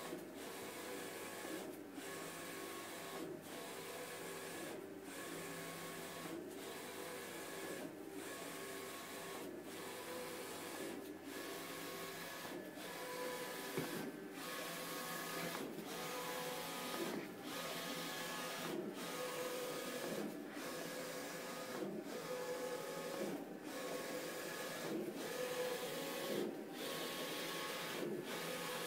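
Roland VersaCAMM VS-420 wide-format inkjet printer printing a banner: the print-head carriage runs across in repeated passes, a steady motor whine broken by a short gap about every second and a half.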